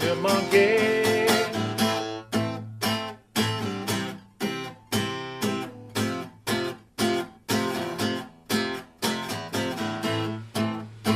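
Acoustic guitar strummed in a steady rhythm, about two strums a second, playing out the end of a song with no singing.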